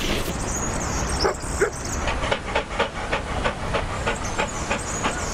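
Cartoon dog sound effects: two short yips about a second in, then quick regular sniffing, about four sniffs a second.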